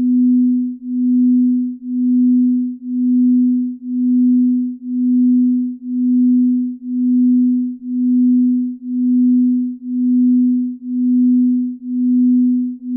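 Binaural-beat sleep tone: a single low, steady pure tone that swells and fades in loudness about once a second.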